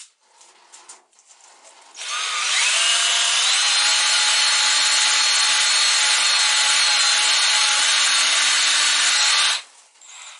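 Power drill spinning a soapy-water-soaked rag on a rod inside a freshly honed small-block Chevy 400 cylinder bore, cleaning out the honing grit. About two seconds in the drill motor spins up with a rising whine and runs steadily, the rag swishing loudly against the cylinder wall, then it stops after about seven and a half seconds.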